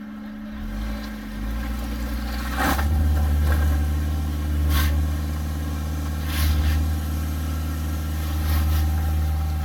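A car engine revving up about half a second in, then running hard and steady under load as the vehicle climbs a rocky trail. A few brief sharp noises come over it.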